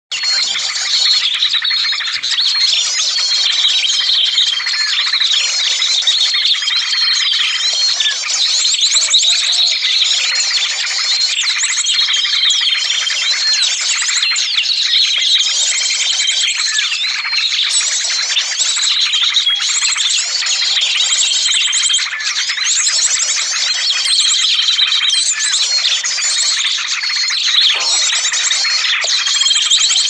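A bird-lure (pikat) recording of a noisy flock of small songbirds: a dense, unbroken chatter of chirps and trills, with a short steady whistle note recurring every two to three seconds.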